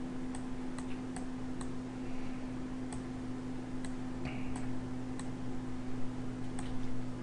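Computer mouse clicking, a dozen or so short, irregularly spaced clicks, over a steady low electrical hum.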